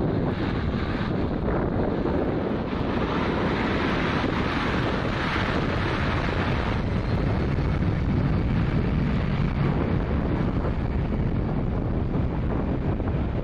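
Boeing 757-200's twin jet engines running at taxi power as the airliner rolls away down the runway, with steady wind buffeting the microphone. The engine hiss grows louder for a few seconds around the middle.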